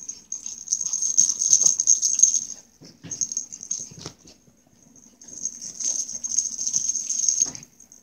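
Maltese dogs playing, tussling over a toy, with noisy play sounds in two long stretches and a few short sharp noises between them.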